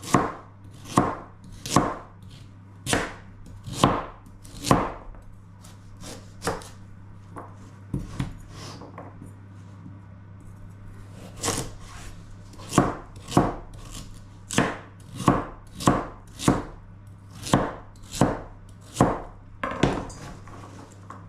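Kitchen knife slicing through carrots onto a cutting board: sharp chops about once a second, with a pause of a couple of seconds about halfway through.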